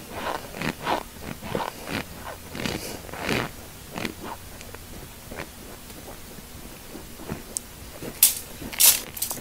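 Close-up mouth sounds of chewing a mouthful of dry cornstarch: short crackly crunches about every half second for the first three and a half seconds, then quieter, with a few sharp clicks near the end.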